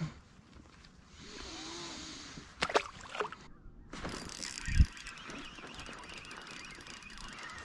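Geese honking and calling as a busy background chatter that starts a little past halfway through. Before it come a few sharp knocks, and once the calling starts there is a single low thump.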